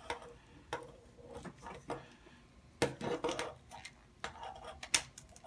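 Handling clicks and rattles of a phone holder and mini tripod being fitted together: a sharp click roughly once a second, with a cluster of them about three seconds in.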